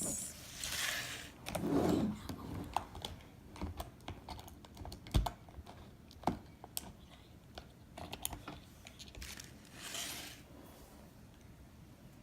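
Small plastic toy pieces and packaging being handled: irregular clicks and taps, with a sharper knock about five seconds in and a few brief rustles.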